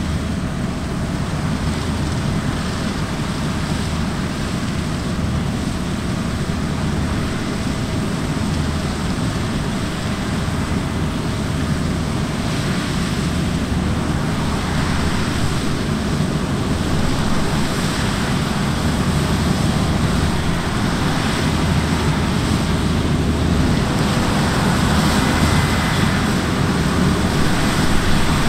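Large diesel farm machinery running steadily, with wind rush on the microphone, slowly growing louder as the machine comes closer.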